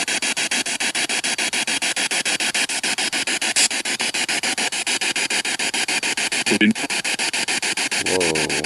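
Spirit box (ghost box) sweeping through radio stations, played through a small Bluetooth speaker: loud choppy static pulsing about ten times a second. A short voice-like fragment breaks through near the end.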